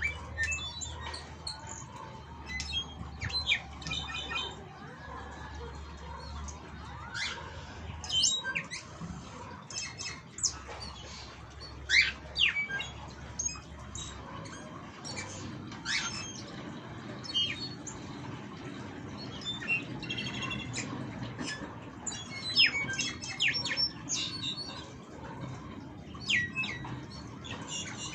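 A pair of caged jilgueros calling to each other in courtship: short, sharp chirps and squawks, one or a few at a time, scattered irregularly, over a low background rumble.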